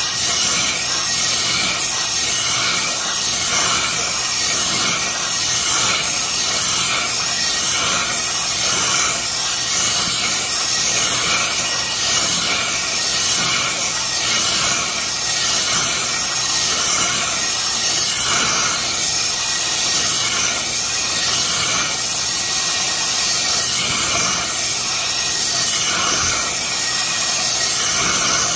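Oxy-propane torch flame hissing steadily as it heats a steel box section, bringing it hot enough to bend.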